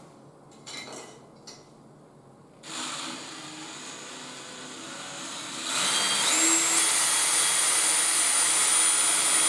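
An electric power tool's motor starts up, then runs louder with a whine that climbs in pitch and settles into a steady high tone.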